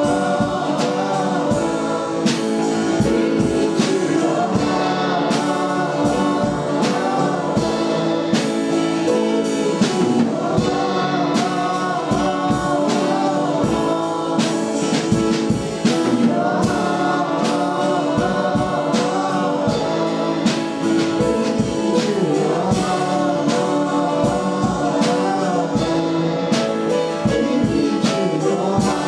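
Worship music: a group of voices singing a gospel song together with a live band, drums keeping a steady beat.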